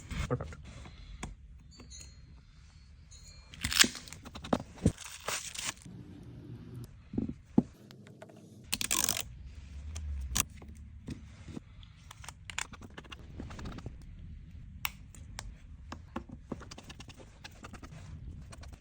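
Small clicks, taps and scrapes of tools and phone parts being handled during a Samsung Galaxy S23 Ultra screen replacement. There are a few short scraping bursts about four to six seconds in and again around nine seconds.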